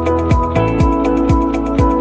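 Electronic background music with a steady kick-drum beat, about two beats a second, over sustained synth chords.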